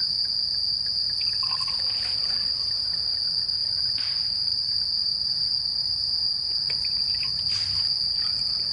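Steady high-pitched chorus of crickets, one continuous even trill, with a couple of faint clinks partway through.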